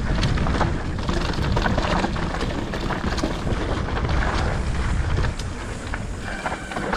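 Mountain bike descending a rough dirt trail: wind rushing over the rider's camera microphone, with the tyres rolling over dirt and the bike rattling, and many short clicks and knocks from the rough ground.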